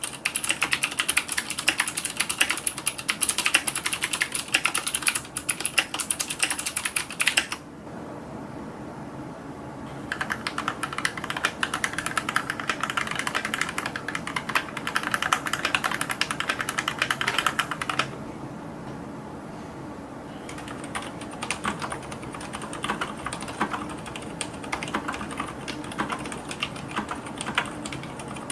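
Fast typing on a computer keyboard: three separate runs of rapid key clicks, each about eight seconds long with short pauses between, the third run noticeably quieter than the first two.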